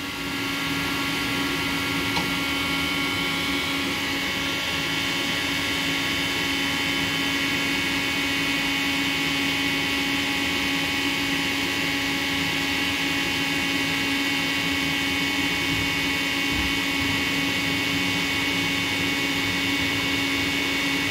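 Bridgeport Torq-Cut CNC mill's DC servo drive moving the table along the Y axis during homing: a steady mechanical whine with several held tones, rising slightly in level just after the start.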